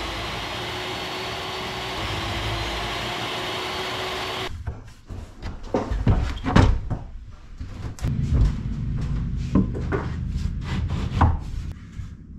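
Portable jobsite table saw running and cutting small mahogany blocks: a steady whining noise that stops sharply about four and a half seconds in. Scattered knocks and thumps follow as the saw is lifted and moved off the bench.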